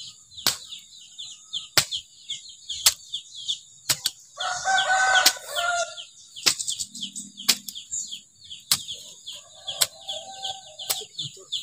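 A steel hoe (cangkul) chopping into garden soil about once a second, each stroke a short sharp knock. Small birds chirp steadily behind, and a chicken clucks briefly about halfway through.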